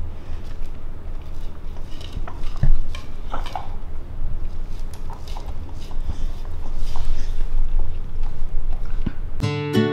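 Golden doodle sniffing and licking two plates clean of meat on a hardwood floor, the plates clicking and scraping on the floor as his nose and tongue push them, over a steady low rumble. Acoustic guitar music starts near the end.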